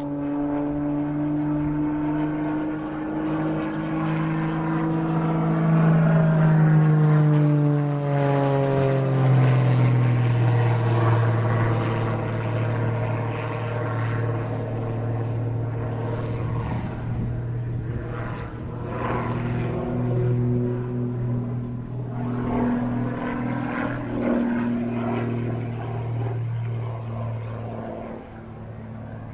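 Small propeller aerobatic plane's engine and propeller droning overhead. The pitch climbs gently, then drops sharply about eight seconds in as the plane manoeuvres, and after that it holds lower with a few swells.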